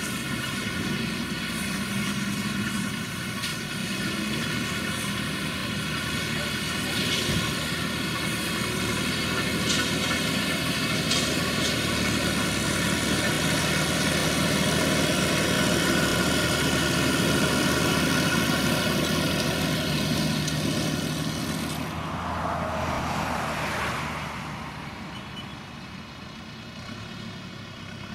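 Tractor engine and PTO-driven Krone V 150 XC variable-chamber round baler running steadily at work: a dense mechanical hum with a few sharp clicks. About 22 seconds in it gives way to a quieter tractor engine running.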